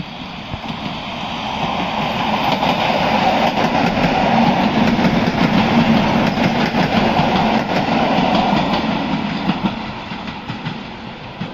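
EN71 electric multiple unit passing close by, its wheels clicking over the rail joints. It grows louder for the first few seconds, peaks as the cars go past, and fades near the end as it moves away.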